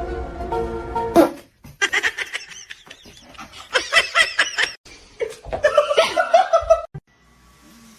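A person laughing in short bursts, in two spells, the first around two to five seconds in and the second around five and a half to seven seconds in.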